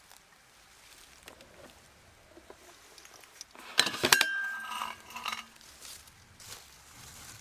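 Metal cookware being handled: a few soft knocks, then a sharp clank about four seconds in that rings briefly, followed by lighter clinks.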